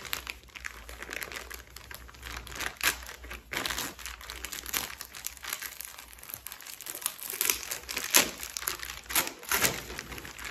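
Clear plastic packaging bag crinkling and crackling as hands handle and open it, in irregular sharp bursts of crackle.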